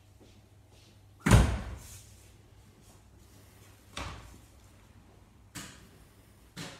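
A heavy door shuts with a loud bang about a second in, followed by three lighter knocks.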